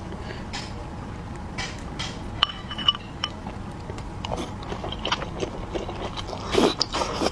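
Close-miked eating of dumplings: biting and chewing with wet mouth clicks and smacks, and a louder bite about six and a half seconds in.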